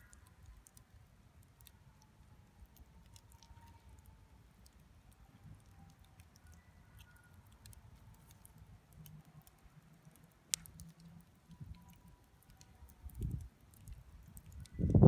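Wood campfire burning with faint, scattered crackles and one sharp pop about ten and a half seconds in. Low thumps come in near the end.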